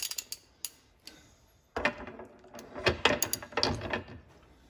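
Metal clicks and clatter as a socket ratchet is fitted and worked on a threaded bushing being screwed onto the upper control arm shaft of a 1961–66 Thunderbird: a few sharp clicks, then an irregular run of clicks and knocks about two seconds in.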